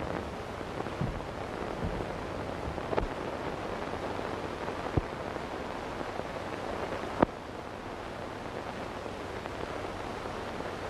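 Steady hiss of an old optical film soundtrack, with a few sharp clicks scattered through it, the loudest about seven seconds in.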